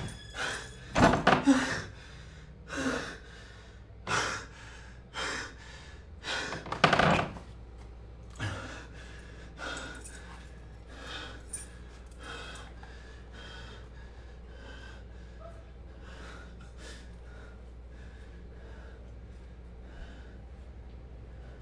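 A man breathing hard in short gasps, about one a second, loud at first and fading to quieter panting.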